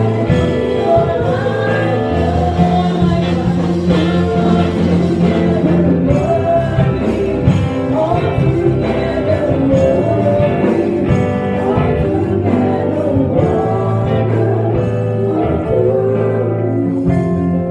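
Live gospel worship song: several singers on microphones over a band of keyboard and guitar, held low chords under a continuous sung melody.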